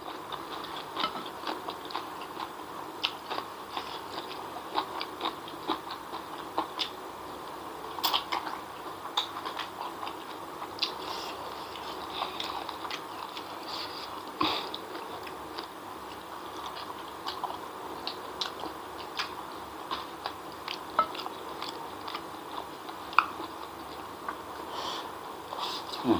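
A person chewing mouthfuls of fried noodles (mie goreng), with many small wet clicks and smacks of the mouth.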